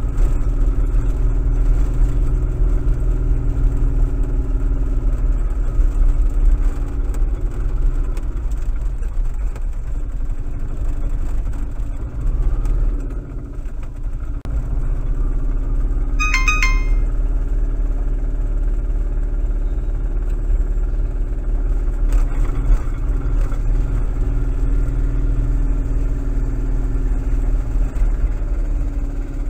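Engine of a small three-wheeled utilicon utility vehicle running as it drives along, heard from inside its cab. There is a brief high-pitched squeak about halfway through.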